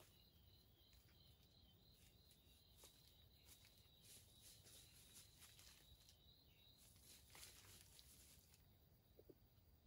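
Near silence: an insect chirping faintly in a steady high pulse, about three pulses a second. There are faint scattered rustles through it, mostly in the middle and around three-quarters of the way in.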